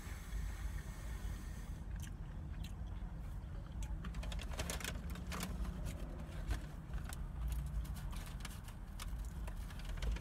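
Takeout food packaging rustling and crinkling with many sharp crackles while it is handled, over a steady low rumble.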